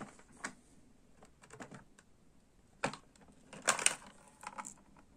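Hard plastic toy lantern being handled as its clear back flap is pried open: scattered light plastic clicks and clacks, with a quick cluster of them about four seconds in.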